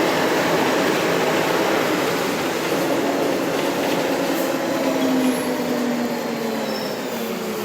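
Mercedes-Benz O500 UDA articulated bus with a Voith automatic gearbox under way: a steady engine and transmission whine over road noise, its pitch drifting slightly downward and the sound easing off a little near the end.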